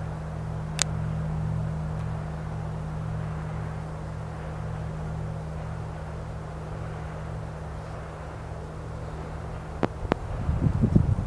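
Large gong ringing on after a strike: a low, steady hum of several tones with a slow pulsing beat, fading gradually. Near the end two sharp clicks, then irregular low thumps.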